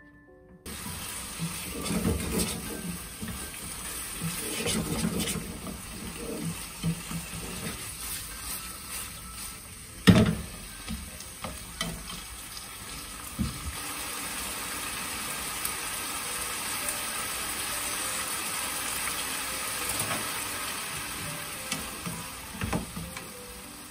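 Spaghetti with cabbage and vegetables sizzling in a hot frying pan on a gas burner as it is stirred and tossed with chopsticks, with scattered thumps of pan and utensils. One sharp knock about ten seconds in is the loudest sound, and the sizzle grows steadier in the second half.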